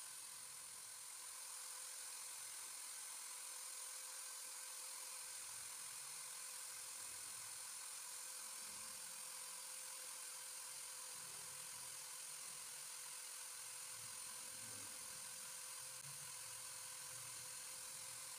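Electric hand drill running at a steady speed, spinning a foam fishing float clamped on a rod in its chuck, with a faint, steady whine.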